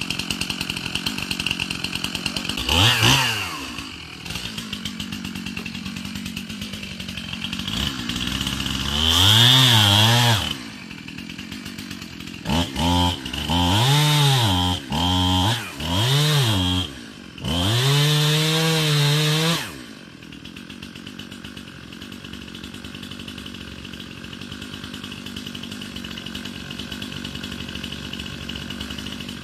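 A two-stroke chainsaw idling and revved up in a string of short bursts over the first two-thirds, the last one the longest, then settling back to a steady idle.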